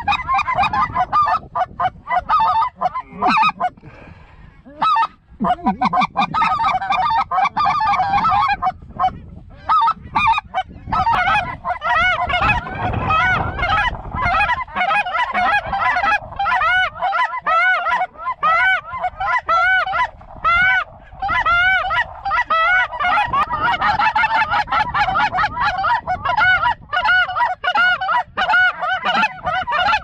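Goose calls blown hard and fast by several hunters: a continuous run of clucks and honks, each note a quick rise and fall in pitch, with a short lull about four seconds in.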